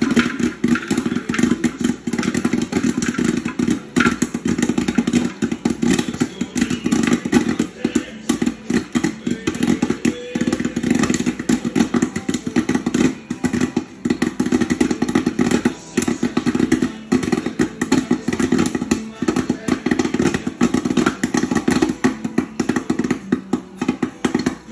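West Bend Stir Crazy electric popcorn popper in full pop: a dense, continuous crackle of kernels bursting, over a steady low hum.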